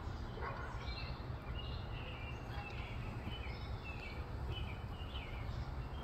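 Small songbirds chirping in the background, many short scattered calls, over a steady low rumble.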